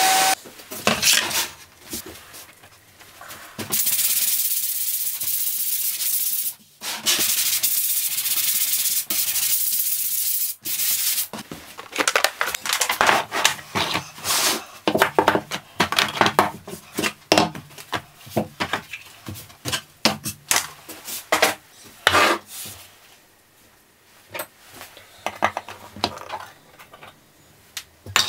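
Woodworking shop sounds: two stretches of steady rubbing noise, starting about four seconds in. From about twelve seconds on comes a long run of light knocks and clatters as plastic painter's stands are set out on a workbench under plywood panels, thinning to occasional taps near the end.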